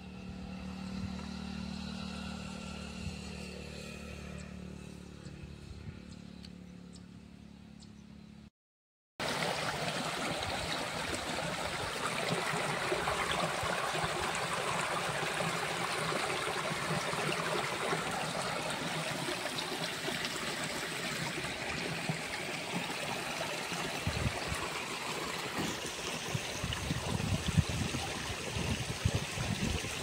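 Shallow stream water flowing over stones, a steady even sound from about nine seconds in. Before that, a steady low hum with a few held tones fades slowly, and the sound drops out for a moment between the two.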